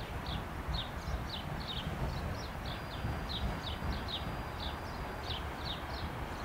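A small songbird chirping over and over: short falling notes, several a second, over a steady low rumble.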